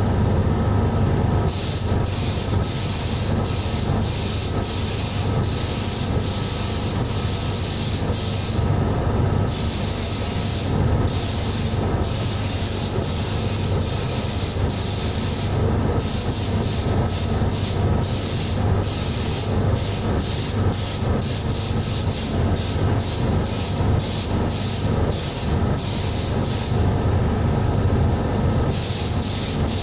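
Compressed-air workshop equipment running: a steady low machine hum under the hiss of an air gun, as used for sandblasting, that cuts in and out many times in quick succession.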